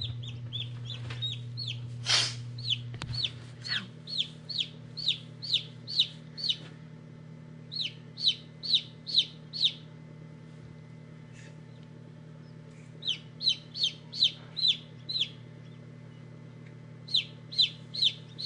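Newly hatched Silver Laced Wyandotte chicks peeping, in runs of short high peeps about two a second, each falling in pitch, with pauses between the runs. Under them is a steady low hum from the incubator.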